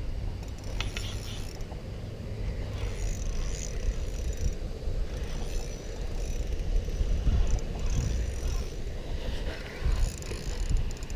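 Fishing reel clicking and whirring as a hooked fish is fought and reeled in, over a steady low rumble.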